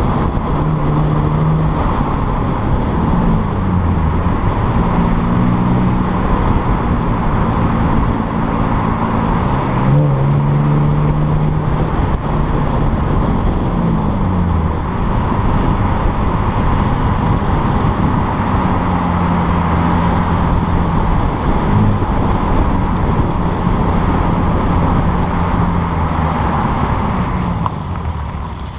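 Chevrolet Camaro driving on a winding road, heard from a camera mounted on the car's flank: a steady rush of road and wind noise over the engine, whose pitch drops and climbs again several times with the throttle. The sound eases off near the end as the car slows.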